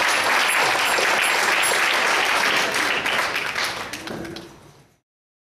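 Applause: a dense run of many hands clapping, fading out over the last couple of seconds before cutting to silence.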